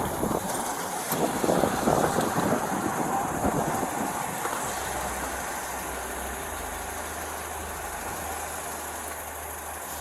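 Rustling and handling noise rubbing on a body-worn camera's microphone for the first few seconds, then a steady low hum of an idling car engine from about halfway in.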